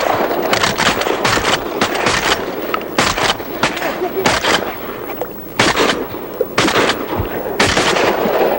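Several duck hunters' shotguns firing a long volley of shots in quick succession at an incoming flock, the shots overlapping and spread across the whole stretch.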